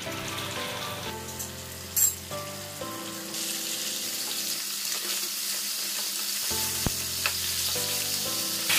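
Snakehead fish steaks frying in hot oil in a nonstick pan: a steady sizzle that grows louder about a third of the way in, with a spatula nudging the pieces. Background music plays under it, and there is one sharp click about two seconds in.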